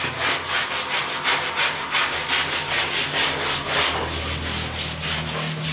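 A small hand brush scrubbing soapy bathroom floor and wall tiles along the corner joint, in quick back-and-forth strokes, about three a second.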